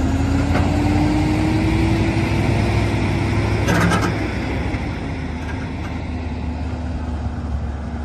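Heavy truck's diesel engine pulling a lowboy trailer loaded with a large excavator: a steady low drone with a whine that slowly rises in pitch for about four seconds, a short burst of noise about halfway through, then the engine holds steady.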